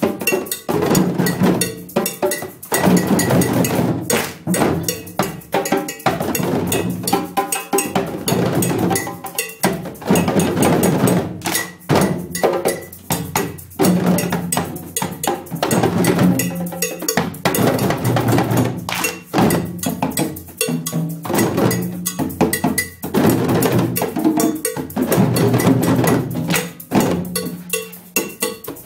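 A class ensemble of djembes played together by hand in a steady, dense interlocking rhythm, with many quick strokes.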